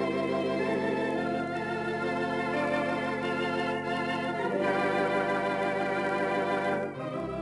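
Theatre organ playing sustained chords with a wavering tremolo over held pedal bass notes, the harmony changing every second or two, with a brief break just before the end.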